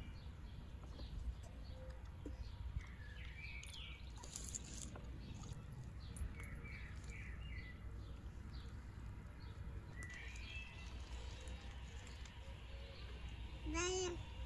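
Songbirds chirping and calling in short phrases over a steady low rumble. A brief, louder pitched sound comes near the end.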